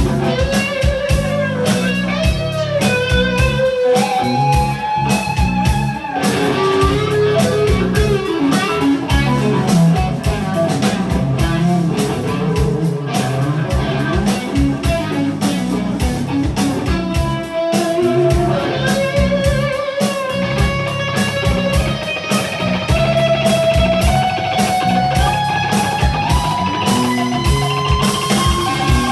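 Electric guitar solo played live: sustained lead notes with bends and slides, the line climbing in steps over the last several seconds.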